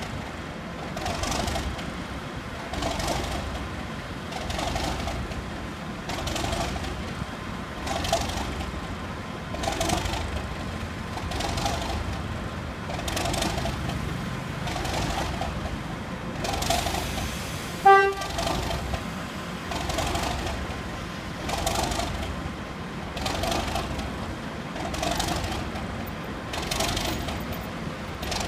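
Ex-TGR Y6 Bo-Bo diesel locomotive running, its sound pulsing regularly about once every second and three-quarters, with one short horn toot about eighteen seconds in.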